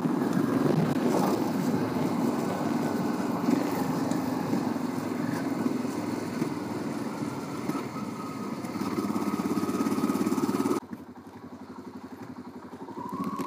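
1989 Honda Transalp's V-twin engine running steadily under way, with wind noise over it. About eleven seconds in the sound drops off sharply to a quieter engine note.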